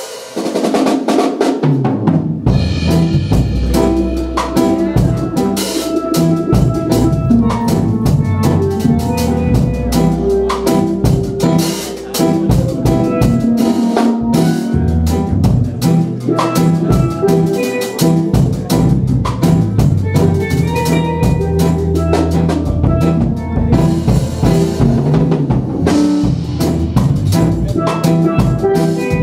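A small live band playing: a two-pan steel pan set carrying the melody over a drum kit with cymbals and an electronic keyboard. The music fills out about two seconds in and runs on steadily.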